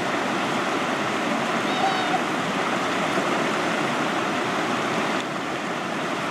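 Trout stream water flowing steadily, an even rush of moving water.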